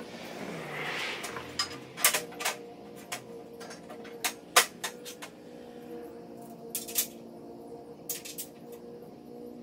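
Metal clinks and knocks as steel aerator brackets, bolts and washers are handled and fitted by hand: a scraping rustle in the first second or so, then a dozen sharp clicks in uneven groups, the loudest about two and four and a half seconds in, over a steady low hum.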